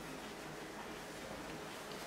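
Quiet room tone: a steady faint hiss with no distinct sounds, and a faint tick near the end.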